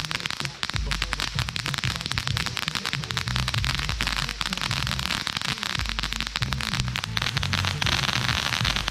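Ground fountain firework spraying sparks, with dense, rapid crackling over a steady hiss.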